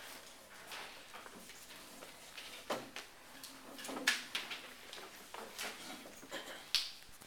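Scattered light knocks and rustles as paper plates are set down one by one on a hard floor and a large paper sheet is handled.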